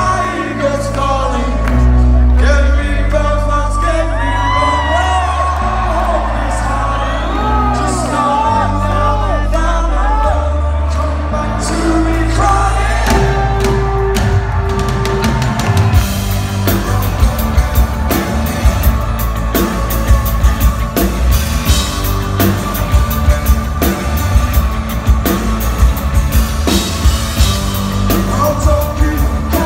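Live rock band playing: singing over stepped bass notes, with the drums coming in about halfway and keeping a steady beat after.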